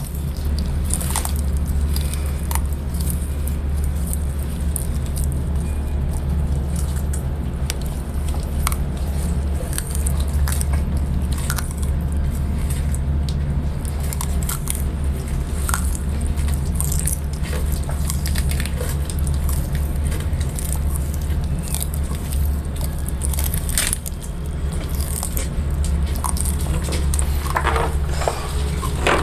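Leopard tortoises biting and chewing sweet potato leaves: scattered sharp snaps and crunches of leaf being torn and chewed, over a steady low rumble.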